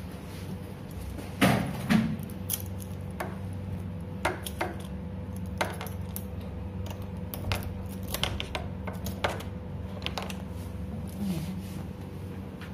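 A key ring jangling as a metal key works the hotel room door lock and handle: a string of small metallic clicks and knocks, with two louder knocks a second or two in. Under it runs a steady low hum.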